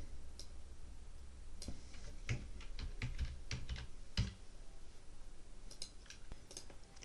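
Computer keyboard keys being tapped in a quick irregular run of keystrokes, thickest in the middle, with a few scattered taps near the end.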